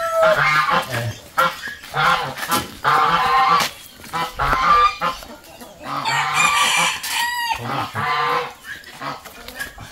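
Chickens clucking and calling in a string of short calls, with one longer call about seven seconds in.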